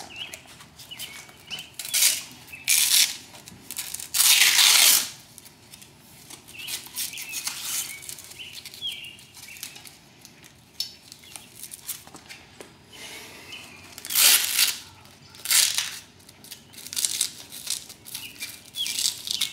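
Hook-and-loop (Velcro) straps on a paramotor cage frame being ripped open: a series of short tearing sounds, the longest about four seconds in, with a quieter stretch of handling noise through the middle.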